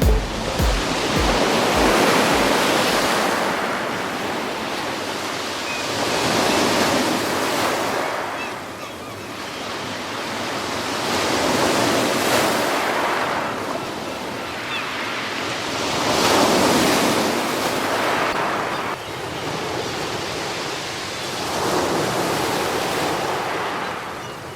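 Sea waves breaking on a beach, five slow washes of surf that each swell and fade, about every four to five seconds.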